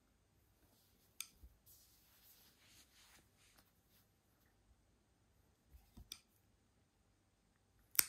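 Scissor-type pet nail clippers snipping a cat's claws: a few sharp separate clicks, the loudest near the end.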